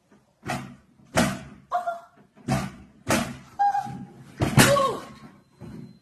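Upright exercise bike knocking against the floor in a rough rhythm, about seven thumps, as it is pedalled hard standing up and rocks on its base. Short yelps come with some of the knocks, and the loudest thump with a falling yelp comes near the end as the bike tips.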